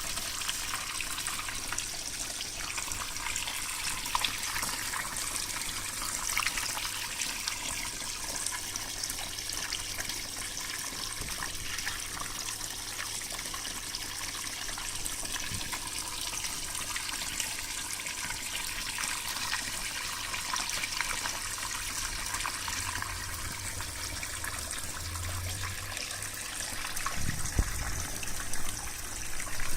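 Steady rush and splash of flowing water: the current that long-finned koi swim against. A few low bumps come near the end.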